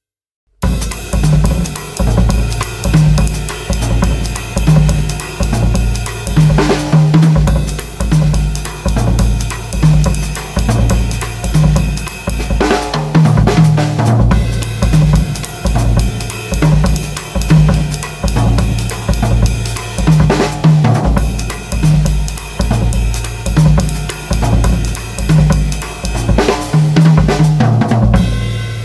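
Pearl Midtown compact drum kit played with maple sticks: a steady groove on bass drum, snare and cymbals, with a short fill roughly every seven seconds. It starts about half a second in and rings out at the end.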